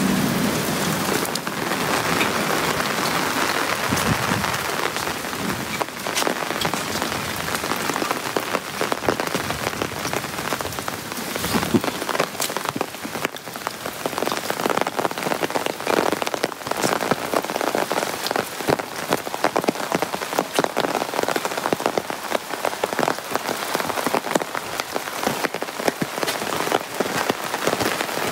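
Heavy rain falling on an open umbrella held just overhead: a dense stream of sharp drop hits on the canopy over a steady hiss of rain on the paving and plants around.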